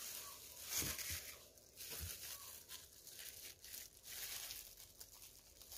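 Faint crinkling and rustling of a thin plastic disposable glove as a hand sprinkles grated cheese onto a sandwich, with a couple of soft knocks about one and two seconds in.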